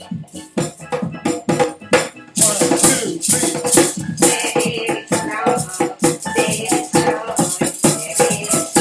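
Djembe hand drumming with a maraca shaking along in quick rhythm; the shaking gets louder about two and a half seconds in.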